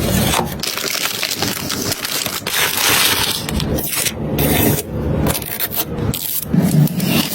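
Dense scraping, rubbing and crackling handling noises with many short clicks.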